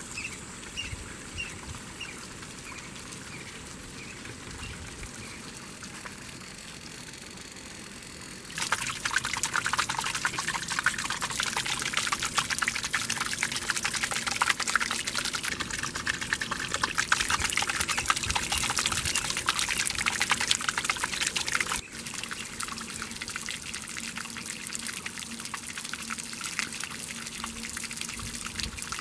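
Water splashing and pouring, a softer trickle at first that turns into a much louder, dense splashing about nine seconds in, then eases back to a lighter flow about twenty-two seconds in.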